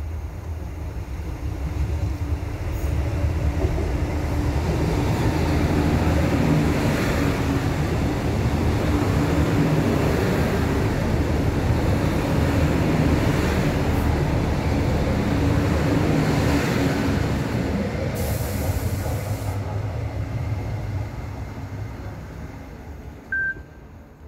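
Passenger train passing along the station platform: a steady rumble of wheels and running gear that builds over the first few seconds, holds for about fifteen seconds, then fades as the train goes away. A short high hiss sounds about eighteen seconds in.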